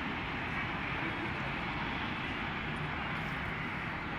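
Steady outdoor background noise of a city spread out below: a continuous even rumble and hiss of distant traffic, with no distinct events.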